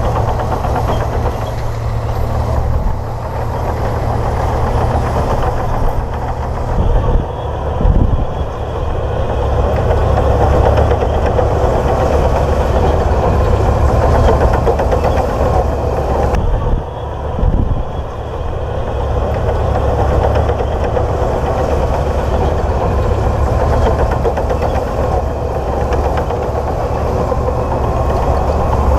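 Komatsu D58P bulldozer's diesel engine running steadily with a low, knocking throb as the dozer works, pushing mud and soil. The engine note changes briefly twice, about a quarter and about three-fifths of the way through.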